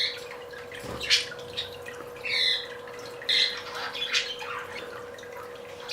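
Pet budgerigars squawking and chirping: about five short, sharp calls spread over a few seconds, over a faint steady hum.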